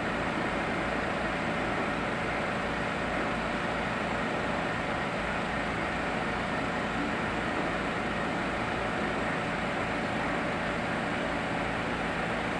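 Steady hiss and low hum of running aquarium equipment, such as an air pump feeding a bubbler, unchanging throughout.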